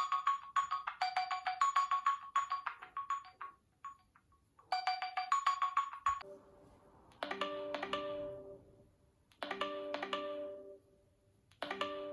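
Nokia phone ringtones: a fast melody of short electronic beeping notes plays, pauses briefly and repeats. About six seconds in, a different tone takes over, with short groups of lower, chime-like notes about every two seconds.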